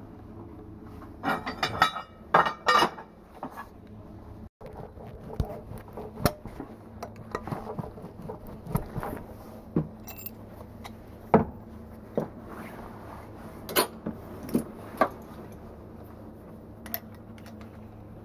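Scattered clinks and taps of metal hand tools being handled during tire puncture repair, with a short run of scraping a second or two in, over a steady low hum.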